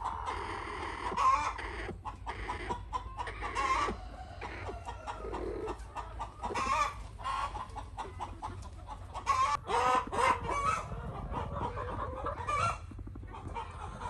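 Chickens clucking: a steady run of short, pitched clucks, with a louder cluster of calls about ten seconds in.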